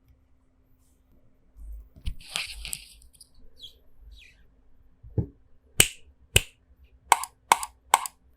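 Single keystrokes on a Rexus Daxa M71 Pro mechanical keyboard, modded with lubed Gateron Red linear switches, TX films, foam dampening, the band-aid mod and clipped stabilizers. They come as about six separate sharp clacks in the second half, after a brief soft noise around two seconds in.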